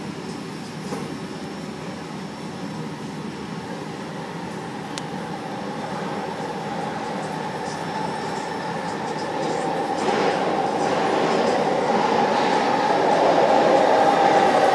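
A Vancouver SkyTrain train approaching on the adjacent track through an underground station, growing steadily louder as it nears. A whine strengthens over its running noise toward the end.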